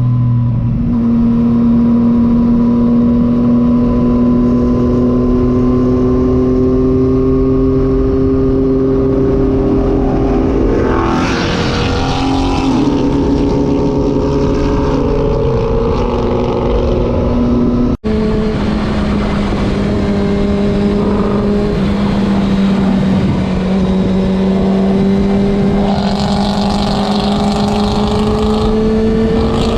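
Ford Mustang GT's V8 exhaust, its low 'fart' note, heard from on board a motorcycle riding with it: a steady engine note that slowly creeps up in pitch, with wind rushing over the microphone. The engine sound swells louder about eleven seconds in and again near the end, and drops out for an instant partway through.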